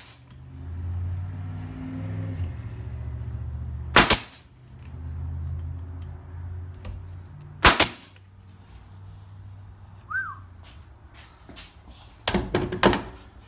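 Nail gun firing into plywood: single sharp shots about four and eight seconds in, then a quick run of shots near the end, with a low steady hum between the first shots.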